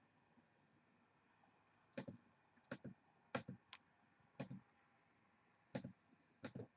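Faint, scattered clicks from a computer mouse and keyboard, about eight in all starting about two seconds in, as a list is copied and pasted.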